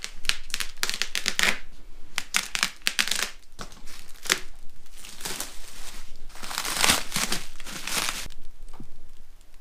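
Clear plastic wrap crinkling and tearing in repeated crackly bursts as it is cut open and pulled off a stack of new knobby motorcycle tires, dying down near the end.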